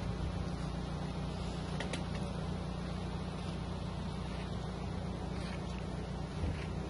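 Motor of a livestock feed machine running steadily with a low, even hum.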